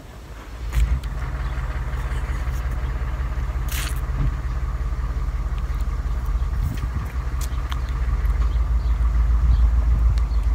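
A motor vehicle engine running nearby: a low, steady rumble that comes in suddenly about a second in, with a faint whine over it, growing a little louder near the end.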